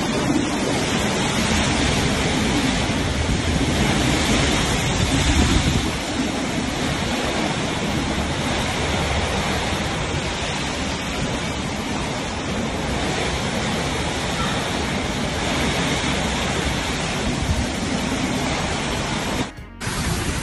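Storm wind and heavy wind-driven rain under a metal carport roof, a steady loud rush of noise. It drops out for a moment near the end.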